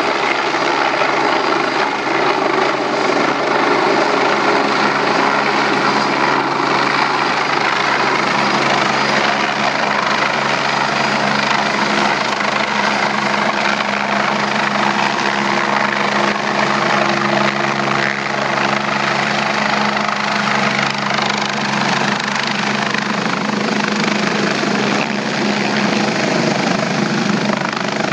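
Air ambulance helicopter's rotor and turbine running loud and steady as it descends and comes in to land.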